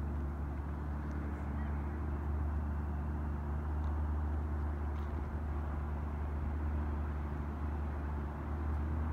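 McLaren MP4-12C's twin-turbo V8 running at a steady cruise, a low even drone with road and tyre noise over it.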